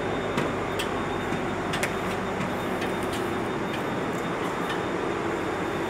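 Steady drone of large diesel generator engines running, with a few light clicks in the first two seconds.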